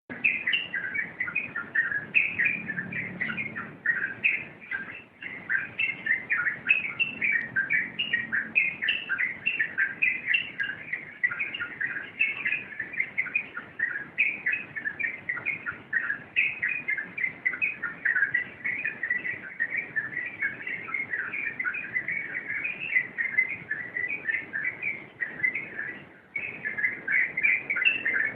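Yellow-vented bulbul (trucuk) singing a fast, unbroken stream of chattering notes, the continuous 'rompelan' style of song. It breaks off only briefly about five seconds in and near the end.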